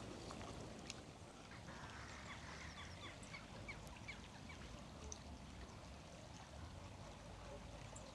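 Faint, scattered bird calls, a few short notes at a time, over a low steady background rumble of quiet riverbank ambience.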